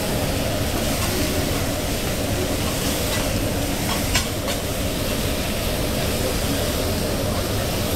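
Steak, scallops and shrimp sizzling on a hot teppanyaki griddle as a metal spatula and tongs turn them, with a couple of sharp metal clicks about three and four seconds in.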